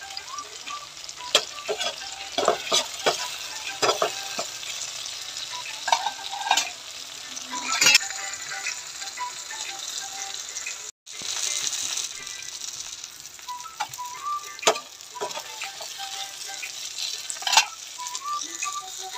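Whole red bird's-eye chillies (siling labuyo) and garlic frying in hot oil in a pan, sizzling steadily, with sharp clicks and scrapes as they are stirred. The sound drops out for an instant about eleven seconds in.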